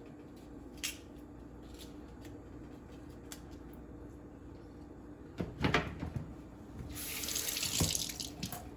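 Kitchen sink tap running for about a second and a half near the end, just after a short clatter of handled items and with a knock while the water runs.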